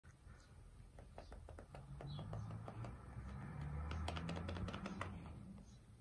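Buttons on a Philips TV remote control being pressed over and over, making a string of light, irregular clicks that come thicker about four seconds in, over a low rumble.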